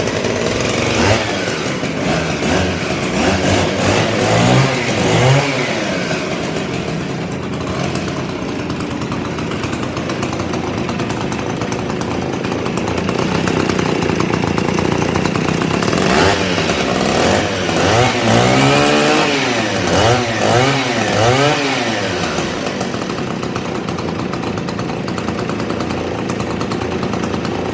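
Stihl 041G gear-drive two-stroke chainsaw running, revved up and down a couple of times about five seconds in and several times between about sixteen and twenty-two seconds, holding a steady speed in between.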